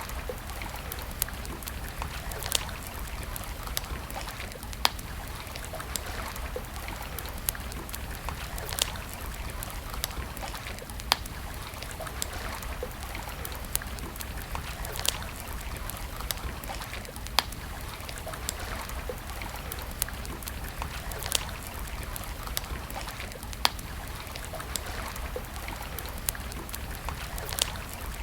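Wood campfire crackling, with sharp pops every second or two at irregular intervals over a steady rushing background noise.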